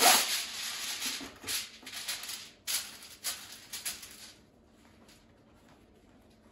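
Aluminium foil and banana leaves crinkling and rustling as they are handled and laid out, with sharp crackles; the rustling stops about four seconds in.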